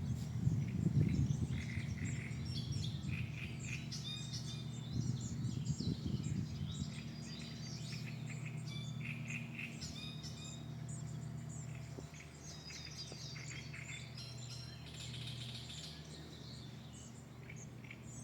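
Several small birds chirping and calling, many short overlapping chirps throughout, over a steady low hum with a louder rumble in the first couple of seconds.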